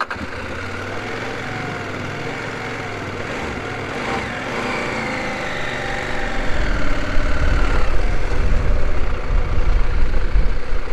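A motor vehicle engine running steadily, its pitch sliding down a few seconds in. A heavy low rumble grows louder about six seconds in.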